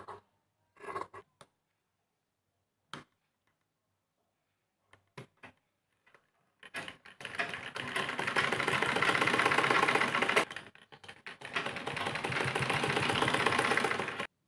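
Sewing machine stitching fabric: two runs of rapid, even needle strokes, the first starting about halfway through and the second after a short pause. Before that, only a few faint clicks.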